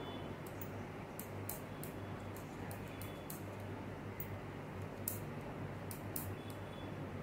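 Kitchen knife cutting a thin rolled sheet of maida dough into diamond-shaped nimki on a stone countertop: faint, irregular short scrapes and ticks as the blade strokes through the dough onto the stone, over a low steady hum.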